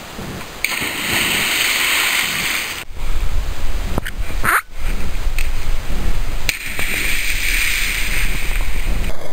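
Two splashes of a person plunging into lake water after a flip off a bridge: the first about a second in, the second near the end, each a hiss lasting a couple of seconds. Low wind rumble on the microphone through the second half.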